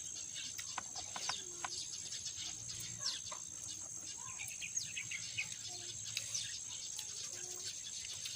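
Steady high-pitched insect drone of crickets, with scattered short clicks and brief chirps over it.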